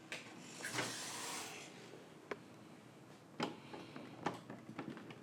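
A short rushing whir, then several sharp plastic clicks and small ticks from a 3D-printed model aircraft's main landing gear mechanism being worked.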